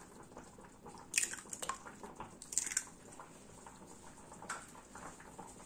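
A brown eggshell being pulled apart by hand over a plastic measuring jug: a few short crackles of shell and the wet drop of the egg into the jug.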